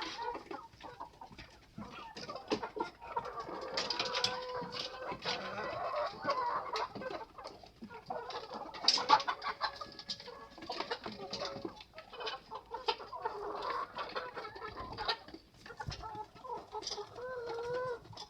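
Chickens clucking in a flock, with many overlapping short calls and frequent small clicks and knocks mixed in; the loudest burst comes about halfway through.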